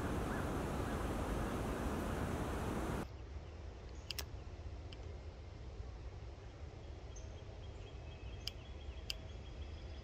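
A steady, wind-like hiss that cuts off suddenly about three seconds in. After it comes quiet woodland ambience with a few sharp clicks and faint high bird calls.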